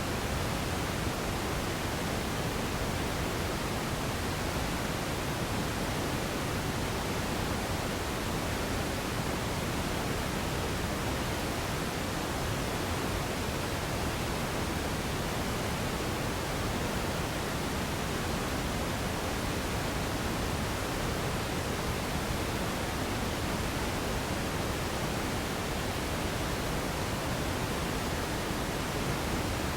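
Radio static: a steady, even hiss of noise with no tones, voices or breaks.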